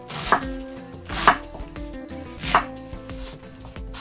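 Kitchen knife chopping cabbage on a cutting board: three separate strokes about a second apart.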